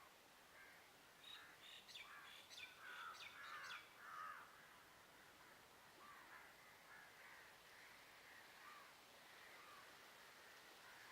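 Faint bird calls over a quiet background. A flurry of short, harsh calls comes about one to four seconds in, then softer scattered calls.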